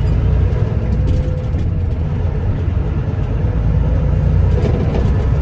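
Grain semi truck's diesel engine running with a steady low rumble, heard from inside the cab, with light rattles over it.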